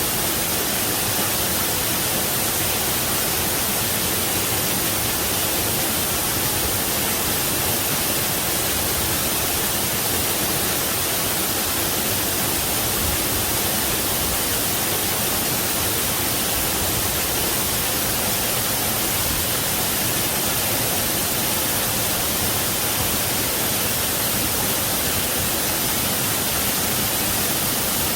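Waterfall: a steady, even rush of falling water with a hissy top, unchanging throughout.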